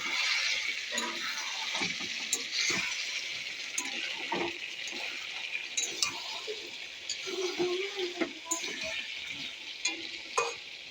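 Mutton frying in a pan with a steady sizzle, a spatula stirring it and clinking against the pan now and then.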